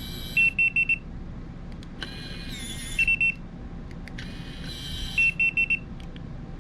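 Latch.it RV keyless door lock cycling its deadbolt over and over: each cycle is a short whir of its small motor and gear train driving the bolt, then a quick run of three or four high beeps, about every two and a half seconds. The deadbolt gear mechanism is working as it should after cleaning.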